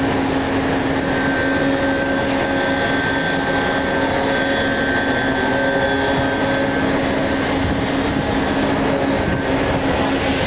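Rail-mounted E-Crane's electro-hydraulic drive running steadily with a constant hum and a faint high tone while its clamshell grab swings over the ship's hold.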